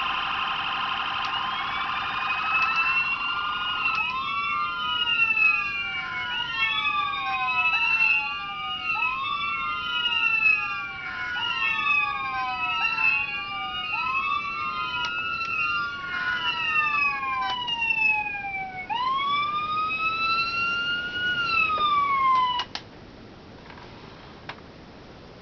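Electronic sirens added to 1/24-scale diecast Chevrolet Tahoe police models, several sounding at once: a steady electronic tone at first, then overlapping rising and falling siren sweeps. They thin to a single slow wail and cut off suddenly about 23 seconds in, followed by a faint click.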